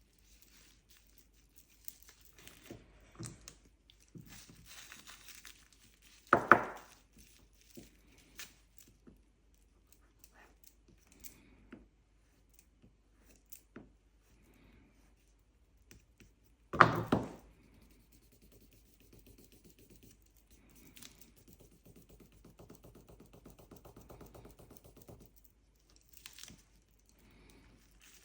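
Quiet handling sounds of hands working modelling paste with a knife on cling film: light rustling and small clicks, with two sharp knocks, about six seconds in and again around seventeen seconds.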